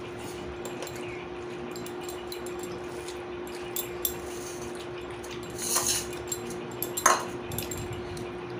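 Dishes and cutlery clinking and scraping at a meal, with two louder clatters about six and seven seconds in, over a steady hum.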